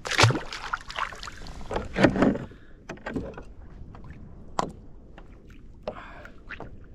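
Knocks and clicks of gear and fish being handled on a fishing kayak: two louder bumps near the start and about two seconds in, then lighter taps and clicks, over a faint wash of water and wind.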